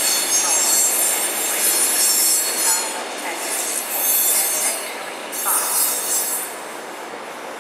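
Tranz Metro EH electric unit's wheels squealing as it crosses the curving tracks and points into the station: a high screech in three long stretches that dies away about six and a half seconds in, over the steady rumble of the train.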